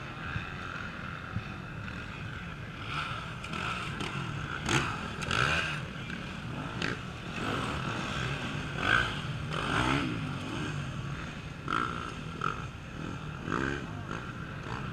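Off-road race motorcycle engines revving as bikes work through a section of the course, the sound swelling and fading several times as riders open the throttle.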